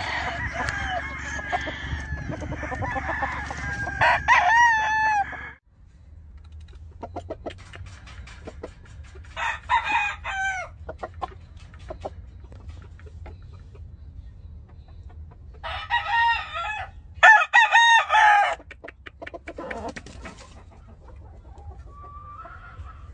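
Kelso gamefowl roosters crowing again and again: a busy stretch of overlapping crows that cuts off abruptly about five seconds in, then separate loud crows about ten seconds in and again between sixteen and eighteen seconds.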